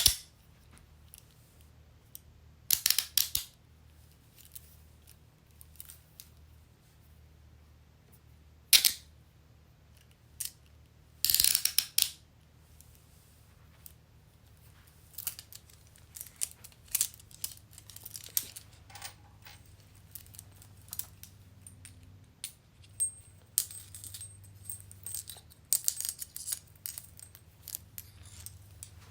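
Metal handcuffs being worked: a sharp click, then short bursts of ratcheting clicks as the cuff jaws are swung through the lock, with a scatter of lighter metallic clicks and rattles through the second half.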